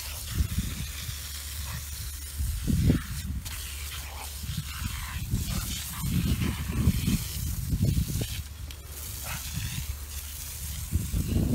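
Water jet hissing from a dog's sprinkler toy while the dog bites and snaps at the spray, the hiss and splashing surging irregularly each time the stream breaks against its mouth.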